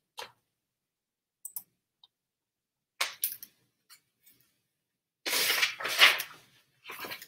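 A hardcover picture book being handled: a few light clicks and taps as it is moved, then a page being turned with a papery rustle a little over five seconds in, the loudest sound, and a softer rustle near the end.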